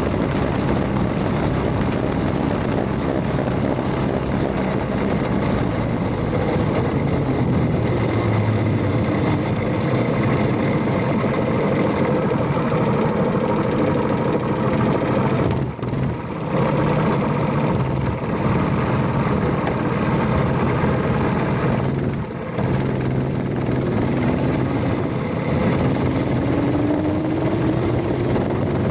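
Predator 212 single-cylinder engine of a mini bike running hard at speed, loud and steady. The engine note drops out briefly twice, about halfway through and again a few seconds later, then rises in pitch near the end as the bike picks up speed again.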